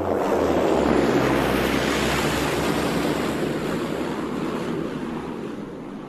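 Beechcraft King Air twin-turboprop plane passing by on its landing approach. A loud rush of engine and propeller noise peaks about a second in, its low propeller tone drops in pitch as it goes past, and the noise then fades away.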